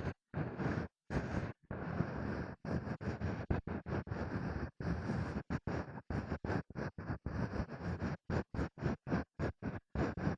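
Ear-cleaning strokes rubbing and scratching close against an ASMR ear microphone, each stroke a short burst of scraping noise with silence between, coming quicker, about two to three a second, after the first couple of seconds.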